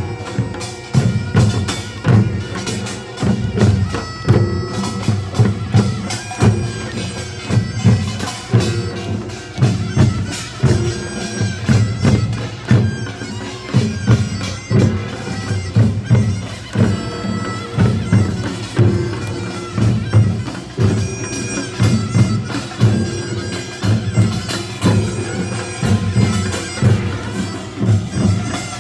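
Korean nongak (pungmul) band playing: a taepyeongso shawm plays a loud nasal melody over a steady, driving beat of drums and small gongs.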